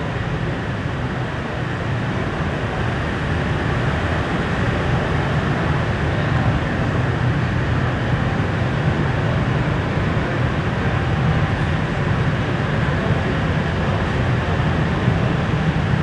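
Machinery running steadily, a continuous low hum with a noisy wash over it.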